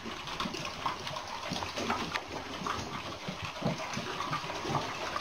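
A pack of dogs eating from metal bowls together: a dense, busy mix of wet lapping, chewing and small clinks and scrapes of the bowls. It cuts off suddenly at the end.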